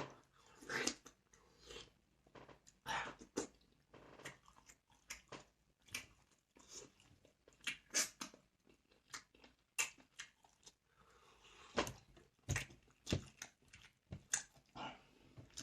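Close chewing and crunching of crisp food, irregular crunchy bites one or two a second.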